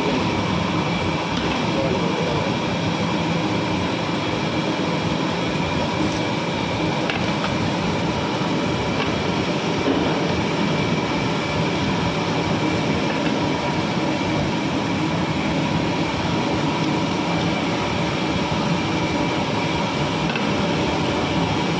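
A loud, steady rushing roar that holds even throughout, with faint steady hums in it, like a running machine or burner.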